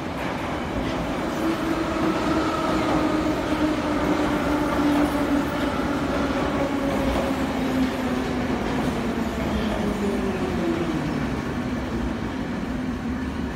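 81-717.5P metro train pulling in along a station platform and slowing: a steady rumble of wheels on rail with a whine that slowly drops in pitch as it brakes.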